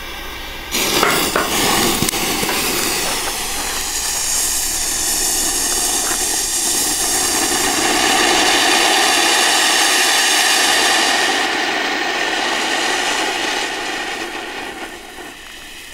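Three Weco Hansdampf firework fountains burning together, spraying sparks with a loud rushing hiss. It starts abruptly about a second in, swells to its loudest about halfway through, then dies away near the end.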